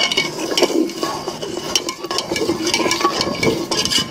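Long-handled metal skimmer stirring rice through boiling water in a large aluminium deg, with repeated scraping and clinks of metal against the pot, heard as many short clicks over the wet churning.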